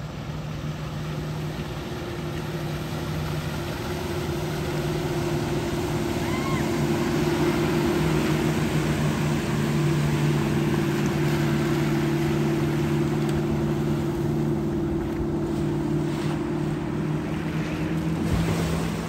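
Motorboat engine running steadily at speed, a constant hum over rushing water and wind, growing louder over the first several seconds.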